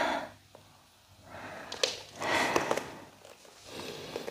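A person's audible breathing, three breaths of airy rushing: one at the start, a longer one in the middle, a fainter one near the end. This is the effortful breathing of holding the crow-pose arm balance. A few small clicks sound during the middle breath.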